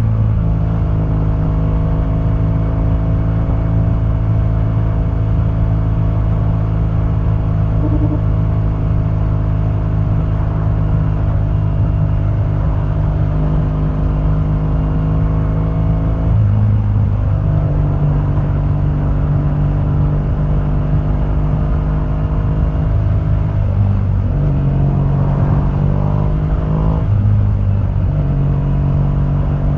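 The boxer twin of a 2015 BMW R1200GS running through its stock exhaust while riding. It holds steady revs for long stretches, and the revs change about 16 seconds in and again between roughly 24 and 27 seconds.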